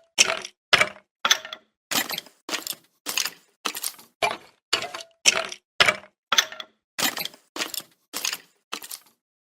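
Skeleton sound effect: a steady run of short, dry cracking and rattling bursts like bones creaking and knocking, about one every 0.6 s. It stops about nine seconds in.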